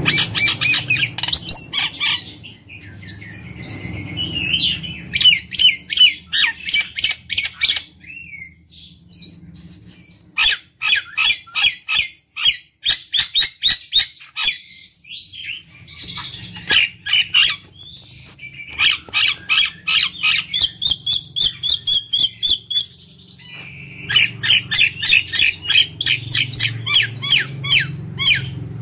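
Common myna singing in long bursts of harsh squawks, chattering and rapid strings of sharp clicking notes, with brief pauses between phrases.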